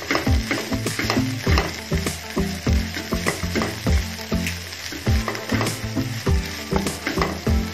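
Tamarind chili paste sizzling in oil as it is stir-fried in a nonstick pan, with a spatula scraping and knocking against the pan about twice a second.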